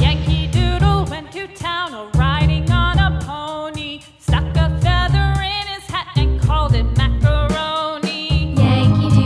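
Background music: a low bass pattern under a high, wavering melody line, with a brief break about four seconds in.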